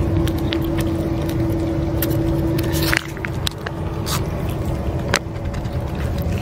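Cats eating wet cat food from a metal dish, with scattered sharp clicks of biting and food against the dish, over a steady low engine-like hum. The hum's held tone weakens suddenly about three seconds in.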